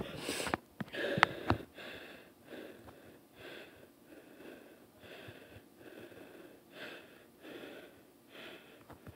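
A boy panting close to the microphone, quick breaths coming about twice a second, heavier at the start, with a couple of light clicks about a second in.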